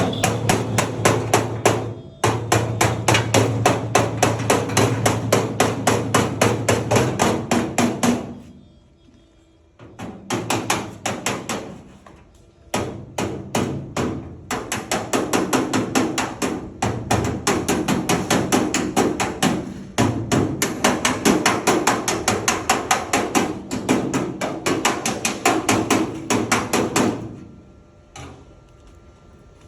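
Rapid, regular hammer blows, about five a second, in two long runs with a brief pause between them.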